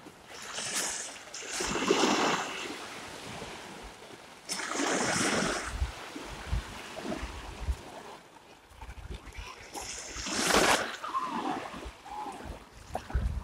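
Small waves washing up onto a sand beach, three hissing surges a few seconds apart, with wind buffeting the microphone.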